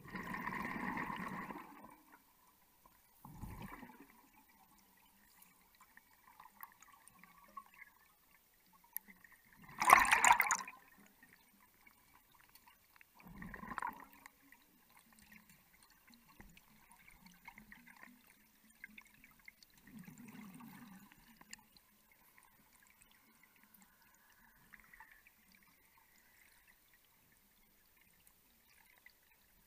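Underwater gurgling of gas bubbles from a diver's breathing gear, coming in about five short bursts. The loudest burst is about ten seconds in, and the others are a few seconds apart.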